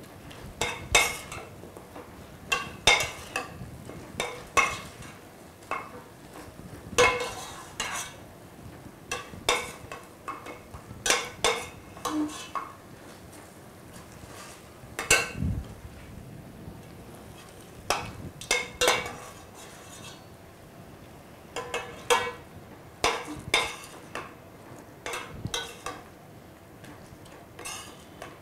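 Metal ladle clinking and scraping against a stainless steel pot as chicken masala is stirred, with irregular sharp knocks, often two close together, every second or two.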